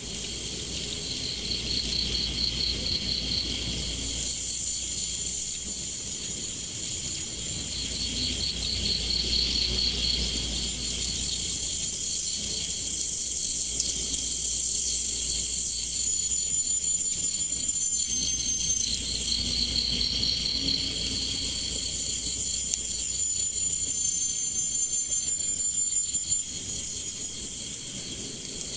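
Chorus of crickets and other insects: several overlapping high, rapidly pulsing trills, with a low rumble underneath.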